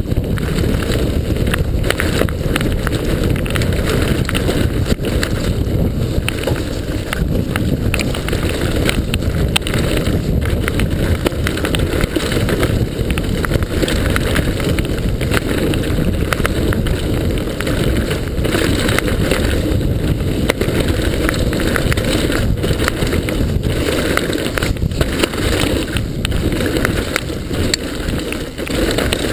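Mountain bike descending a dirt trail at speed: a constant low rumble of wind on the microphone and tyres on dirt, with frequent short rattles and knocks from the bike jolting over the rough ground.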